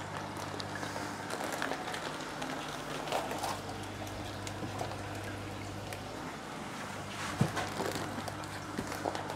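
Water and live fish being tipped from a plastic shipping bag into a foam box, with plastic rustling and small clicks, over a steady low hum of aquarium equipment. A sharp knock about seven and a half seconds in.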